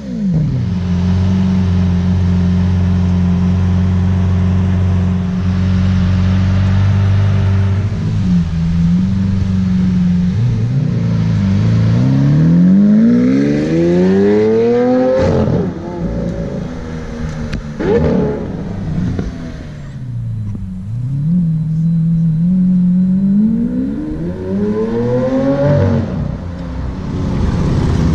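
Lamborghini Aventador's V12 through its factory race exhaust, driving on the road. It holds steady revs for several seconds, then pulls hard with the revs climbing and cutting sharply at gear shifts, easing off for a moment, and climbing again into another shift near the end.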